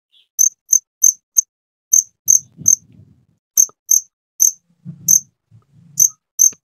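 A cricket chirping very loudly: a dozen or so short, sharp, high chirps, about two a second at uneven intervals.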